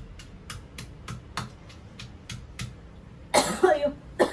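Stone pestle pounding chillies in a stone mortar, about four strokes a second, stopping after a couple of seconds. Then a loud fit of coughing with a short second cough near the end, brought on by the pungent chilli fumes.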